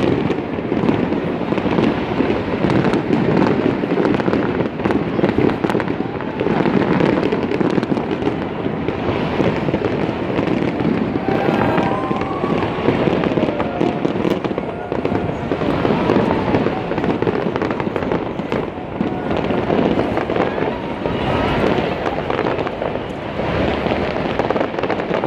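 Aerial fireworks bursting and crackling in a continuous run of pops and bangs, mixed with the chatter of a large crowd of onlookers.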